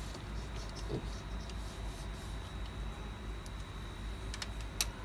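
Faint handling sounds of fingers pressing a waterproof adhesive seal onto an iPhone 7's rear housing, with a few light clicks and one sharper click near the end, over a steady low hum and a faint high-pitched tone.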